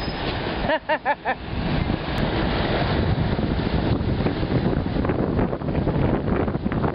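Wind buffeting the microphone on a moving scooter, a dense steady rumble. About a second in it drops away briefly, and three or four short wavering high notes are heard.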